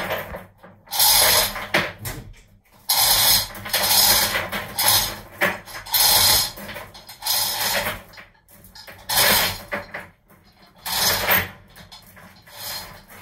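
Chain block's hand chain being hauled through the hoist, a metallic rattling and clinking of chain links in short bursts roughly once a second, as it lowers a suspended marine diesel engine.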